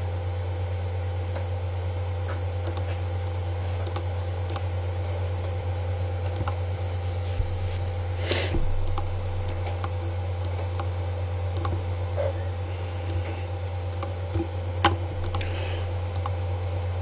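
Scattered clicks from a computer mouse and keyboard as shapes are selected and moved, over a steady low electrical hum.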